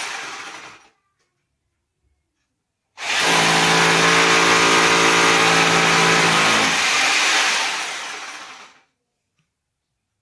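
An electric drill's motor runs at a steady speed for about four seconds, then winds down and fades over about two seconds. A shorter burst fades out at the very start.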